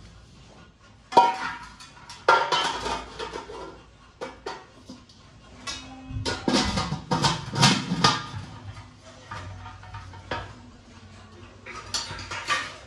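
Brass utensils clanking against each other as they are handled: a string of irregular metal knocks, some ringing on briefly after the strike.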